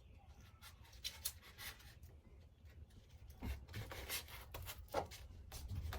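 Faint rubbing, scraping and light taps as a foam insulation panel is handled and pressed into place on the van wall, over a low steady hum.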